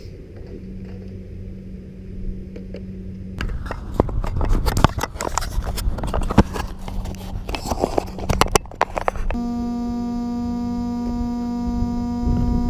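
Handling noise on a GoPro camera: a run of sharp knocks, clicks and rubbing as the camera is moved about and fitted onto a radio-controlled car. About nine seconds in, a steady buzzing tone with even overtones starts and holds.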